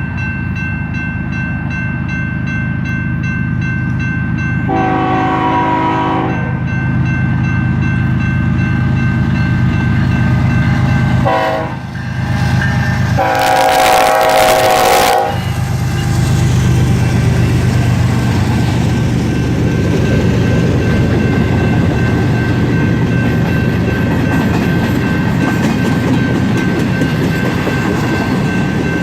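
BNSF freight train's diesel locomotives running with a steady low rumble of engines and wheels on rail. The locomotive horn sounds a chord three times: a blast about five seconds in, a short toot near twelve seconds, and a longer blast just after.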